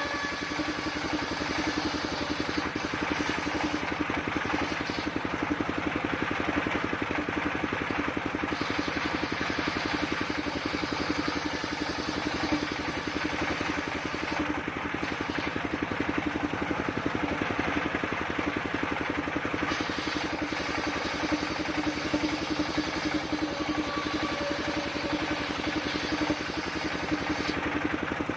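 Engine driving a portable circular sawmill, running steadily at an even speed with a fast regular pulsing.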